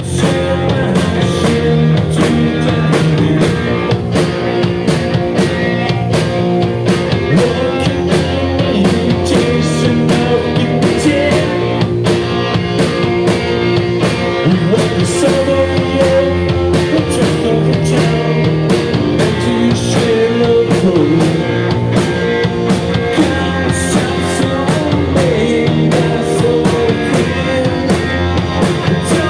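Live rock band playing loud: two electric guitars, bass guitar and drum kit, with a steady drum beat throughout.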